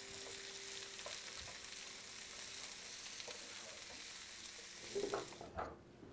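Sliced peppers, carrots and celery sizzling in a hot skillet while a wooden spatula stirs and scrapes them. The sizzle is a steady hiss that cuts off near the end.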